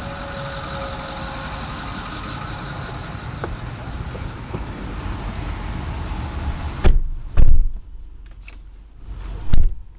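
Steady running background, most likely the pickup's 6.4 L Power Stroke diesel idling, then a loud thump of the truck's cab door slamming shut about seven seconds in, after which everything is quieter and muffled. Another loud thump comes near the end.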